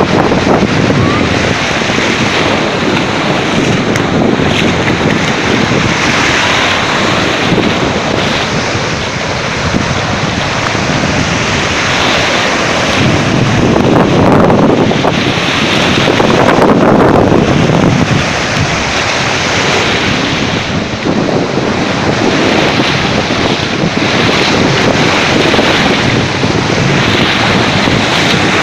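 Sea surf washing in swells, with heavy wind buffeting the microphone.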